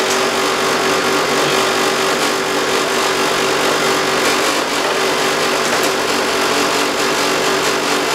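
Split air-conditioner outdoor unit running: compressor hum with a strong steady tone and the condenser fan's even whoosh, unchanging throughout. The compressor is under load, drawing refrigerant out of a freon charging tank to empty it.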